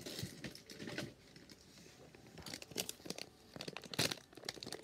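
Plastic candy wrapper crinkling and rustling in irregular bursts as small hands struggle to tear it open.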